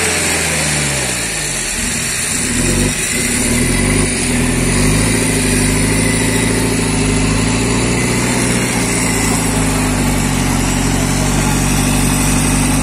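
Jeep engine working under load, its revs sagging for the first couple of seconds, then climbing again and holding steady and high.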